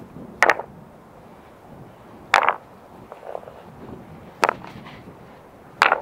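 Field stones knocking against each other as they are set down one by one onto a fire-pit ring, four sharp clacks about every second and a half to two seconds.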